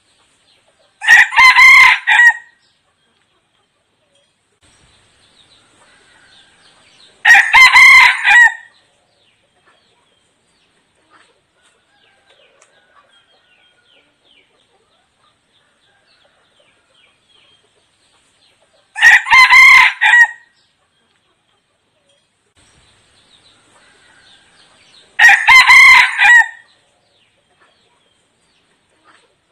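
A red junglefowl decoy rooster crowing four times, in two pairs: each loud crow lasts about a second and a half and ends in a short separate final note. The crows come about six seconds apart within each pair, with a longer pause between the pairs.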